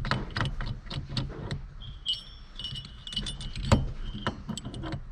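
Metal hand tools and parts clicking and clinking during a steering wheel installation, with a high, chime-like ringing tone from about two seconds in that stops shortly before the end.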